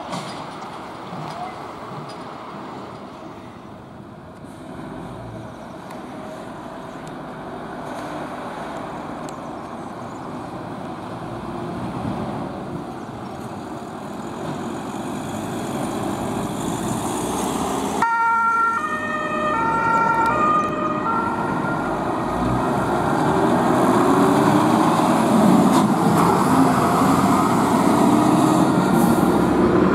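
Fire engines leaving on an emergency run, their diesel engines running and growing louder. About two-thirds of the way in, a German two-tone siren (Martinshorn) sounds briefly in alternating high and low tones. It is followed by the heavy diesel of a turntable ladder truck pulling past, rising in pitch as it accelerates.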